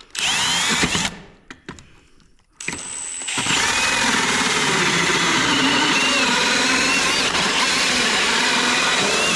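Power drill running under load: a short burst of about a second, a pause, then one long run of about seven seconds whose pitch wavers as it works.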